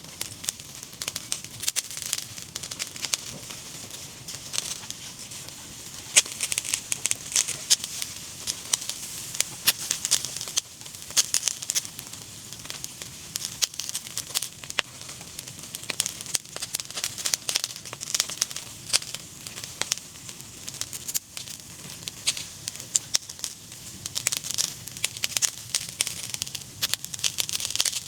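Meat crackling and sizzling over a cooking fire, with a dense run of sharp, irregular pops over a steady hiss that does not let up.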